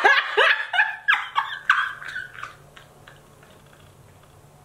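A woman laughing hard: a rapid string of high-pitched cackles, about three a second, that dies away about halfway through.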